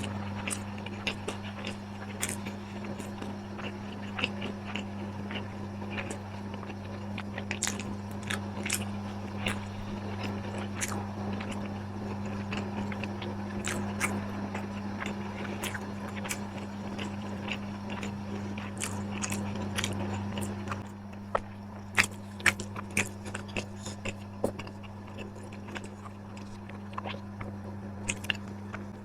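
A person eating close to the microphone: biting and chewing crunchy food, with many sharp crunches and a few louder ones about 22 seconds in. A steady low hum runs underneath.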